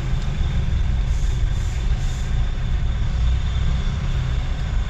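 Steady low vehicle running and road noise heard from inside a delivery vehicle's cab, with three brief soft hisses about a second in.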